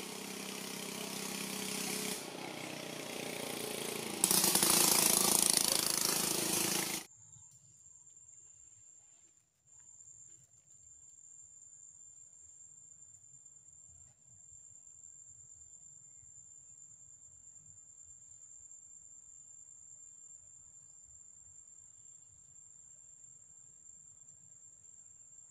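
A loud engine hum under a wide hiss, growing louder about four seconds in, then cutting off abruptly about seven seconds in. After it, a steady high-pitched insect drone, faint, with a weak low rumble beneath.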